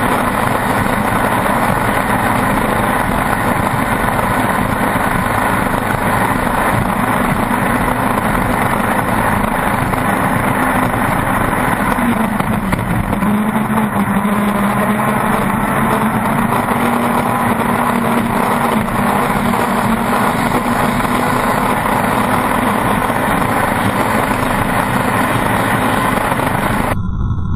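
Pro Stock racing boat's engine running hard at speed, a loud steady drone whose pitch shifts a little about halfway through, heard from onboard with rushing wind and water.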